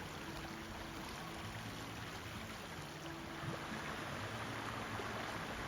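Creek water running over small cascades: a steady rushing that swells slightly about three and a half seconds in.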